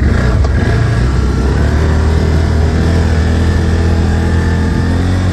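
Quad bike engine revving up sharply at the start, then running hard at steady high revs under load.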